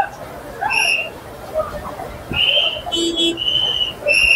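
A hand whistle blown in short blasts, a few in a row with two slightly longer ones in the middle. These are the signals used to direct a crane lifting a steel girder into place over the track. Onlookers' voices murmur underneath.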